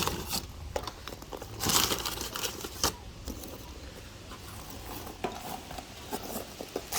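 Crinkling and rustling with a few sharp clicks as fast-lighting wood is handled and put into a charcoal barbecue.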